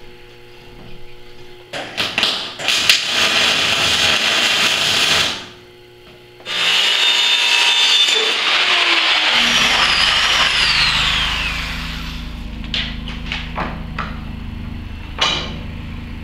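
Two bursts of power-tool cutting: a few seconds of one tool, a short break, then a handheld power saw cutting lengthwise through PVC pipe, its whine falling in pitch as it spins down. A low steady hum and scattered knocks follow.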